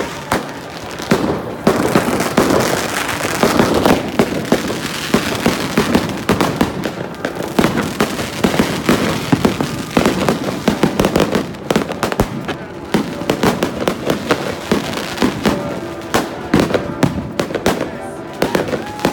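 Many fireworks going off at once: a dense, unbroken stream of bangs, pops and crackles from rockets and firecrackers bursting overhead.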